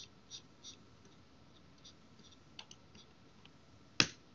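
Scattered light clicks of a computer keyboard and mouse in use, with one sharp, much louder click about four seconds in.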